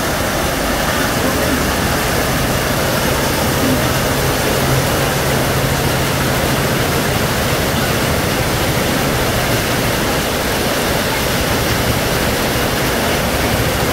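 Heavy monsoon rain pouring down steadily, an even rushing hiss. A vehicle's engine hums low underneath from about two to seven seconds in.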